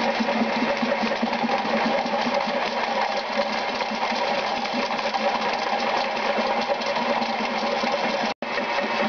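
Spartan drum drain-cleaning machine running, its motor and spinning spiral cable in the floor drain making a steady mechanical whir; the sound cuts out for an instant near the end.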